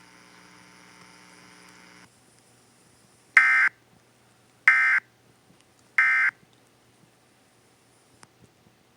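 Emergency Alert System end-of-message data tones: three short, loud, identical bursts of digital squawk about 1.3 seconds apart, marking the end of the alert. A faint steady hum stops about two seconds in, before the bursts.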